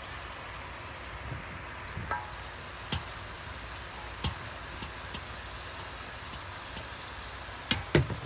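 French fries deep-frying in an electric countertop deep fryer, the oil bubbling with a steady hiss. A few sharp taps and knocks cut through it, the loudest two close together near the end.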